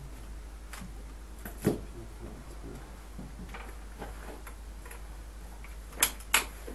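Scattered sharp clicks and light knocks from flower-arranging work at a table: one loud click about a third of the way in, fainter ones spread through, and two loud clicks close together near the end, over a low steady hum.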